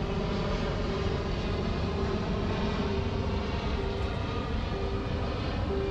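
Steady outdoor city rumble of distant traffic, with a faint repeated note coming and going.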